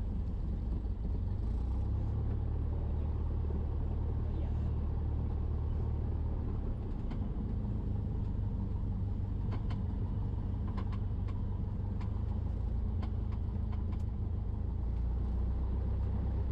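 Cessna 172's engine idling while the plane taxis, a steady low drone, with a few faint ticks around the middle.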